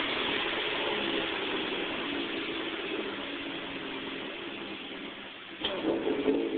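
Supercharged 2.0-litre four-cylinder engine of a 2007 Chevrolet Cobalt SS running and settling toward idle. Near the end a sharp click comes, and then the engine is revved up briefly.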